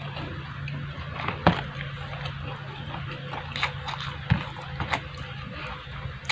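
Close-up eating sounds: chewing and mouth clicks with a few sharper knocks, about one and a half and four seconds in, over a steady low hum.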